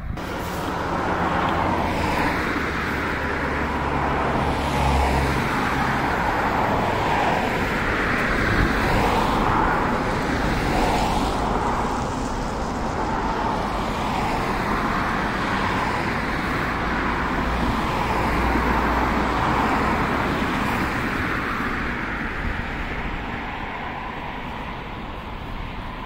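Road traffic: a continuous rush of passing vehicles that swells and eases, fading somewhat near the end.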